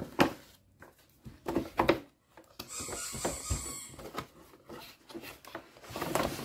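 Cardboard toy box being handled: several sharp knocks and taps as it is turned over on the table, and a stretch of cardboard rubbing and sliding about three seconds in as the white inner box is slid out of the outer box.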